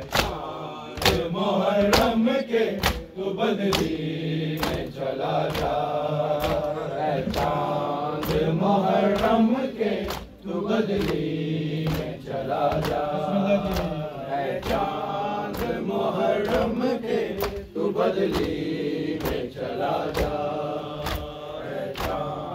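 Men's voices chanting a Shia noha (Muharram lament) together, kept in time by rhythmic matam: open hands striking chests about twice a second.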